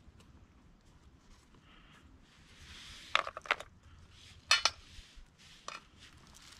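Small hand-held kit being handled: a soft rustle, then a few sharp clinks, several close together about three seconds in, the loudest pair about a second later and a fainter one near the end.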